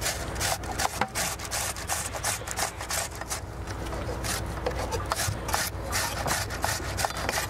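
Fresh tomatoes being grated on a handheld metal grater: a steady run of scraping strokes, about three a second, with a few sharp knife knocks on a cutting board.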